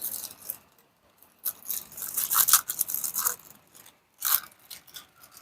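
Small metal door-knob hardware part being handled and pushed into a freshly drilled hole, giving short scraping and clicking sounds, busiest in the middle and again briefly near the end.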